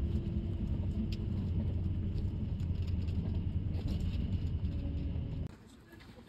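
Shuttle bus riding along, heard from inside the cabin: a steady low rumble of engine and road noise. It cuts off abruptly about five and a half seconds in, leaving only faint, quiet hall ambience.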